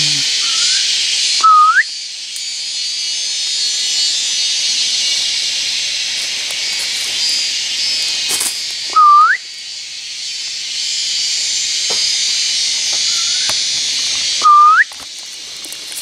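Three loud, short whistled calls several seconds apart, each a quick note that hooks sharply upward in pitch: a hunter's whistle lure call for squirrels and birds. A steady high insect drone runs underneath, dropping away briefly after each call.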